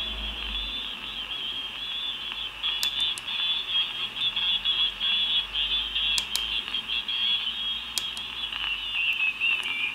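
Audio from a home-built DDS-controlled SSB receiver being tuned down the 40 m amateur band in LSB: band noise with thin, high-pitched, wavering signals from distant stations. A few sharp clicks come through a few seconds in, again midway and near the end.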